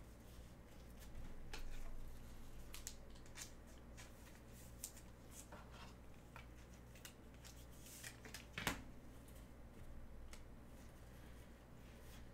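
Faint rustling and small clicks of a trading card pack being opened and its cards gathered by gloved hands, with a soft swell of rustling early on and one sharper click about two-thirds of the way through.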